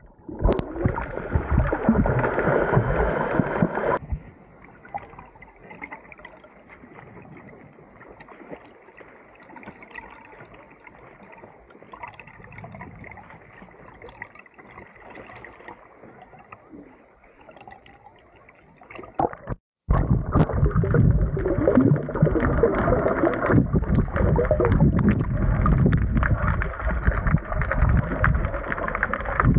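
Muffled water sound heard through a submerged camera: churning and bubbling water, loud for the first few seconds, much quieter through the middle, then loud again after a sudden break about two-thirds of the way in.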